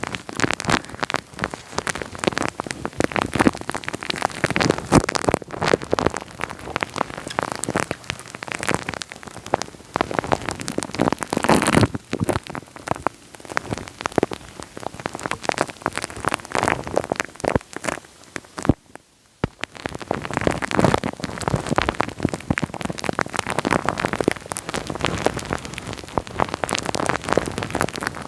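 Wet, sticky sounds made right on the microphone: a dense, crackly run of small clicks and pops, with a brief pause about two-thirds of the way through.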